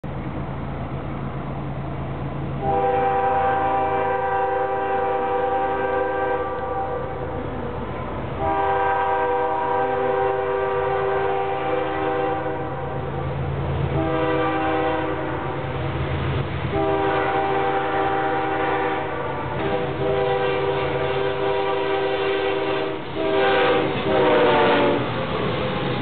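CSX freight locomotive's air horn blowing a series of blasts as the train approaches: two long, one short, then two more long ones. A last blast drops in pitch as the locomotive passes close by near the end, over the steady low drone of the diesel engines.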